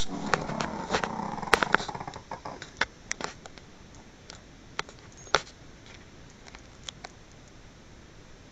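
A sleeping Pekingese snoring: one noisy snore breath with many small clicks in it, lasting about two seconds and fading, opened by a sharp click. Then a quieter stretch with a few scattered faint clicks.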